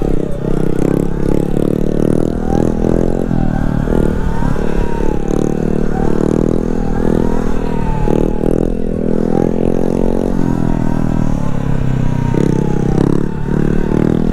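Motorcycles riding along at speed, with an engine note rising and falling and a wavering whine above it, under heavy wind buffeting on a helmet-mounted microphone.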